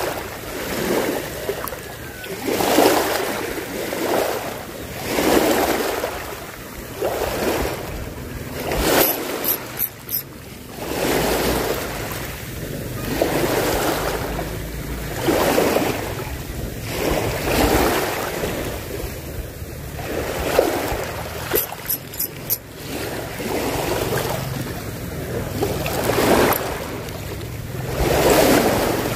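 Small waves washing onto the beach, one swell about every two seconds. A few sharp clicks come about a third of the way in and again about three-quarters through.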